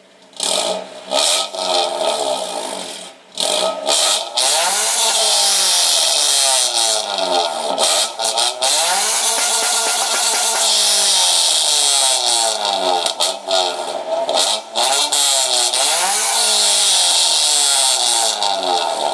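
2000 Honda Civic's four-cylinder engine revved repeatedly through an aftermarket 4-inch rolled-tip exhaust, very loud. It starts with a few short blips, then the pitch climbs and falls with each longer rev, easing back toward idle near the end.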